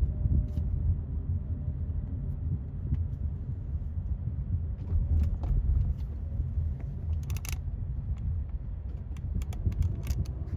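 Continuous, uneven low rumble of the open air, with scattered light clicks and ticks, a short cluster of them about two thirds of the way through.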